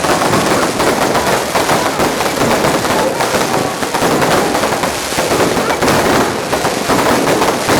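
Fireworks crackling in a dense, unbroken stream of rapid small bangs.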